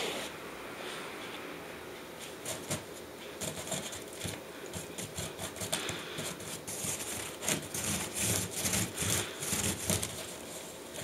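Irregular scratchy rubbing and scraping in quick bursts, busiest in the second half, as a cat shifts and paws about inside a wicker basket, with a cloth swiped along a wooden floor near the start.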